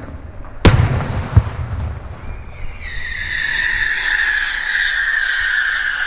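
Two sharp fireworks bangs in the first second and a half, the first the louder. From about three seconds in, several whistles from rising whistling fireworks sound together, the strongest falling slowly in pitch.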